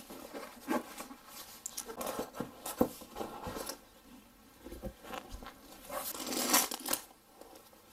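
Laptop and its cardboard-and-plastic packaging being handled during unboxing: scattered light rustles and taps, then a longer, louder rustle about six seconds in.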